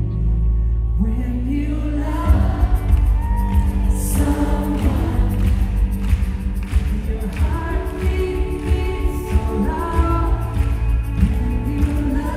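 Live acoustic-pop band performance heard from the audience in a large arena: a male lead voice sings a melody over the band, with a heavy boomy bass. A steady beat comes in about two seconds in.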